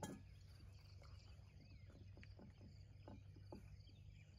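A metallic clink at the start, then a string of light taps and clicks as small camp cookware is handled, over faint outdoor ambience with soft chirping.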